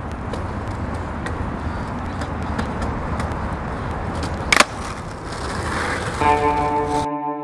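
Skateboard wheels rolling and grinding on concrete, a steady rolling noise with small clicks, and one sharp clack of the board about four and a half seconds in. Music with a guitar-like tone comes in near the end.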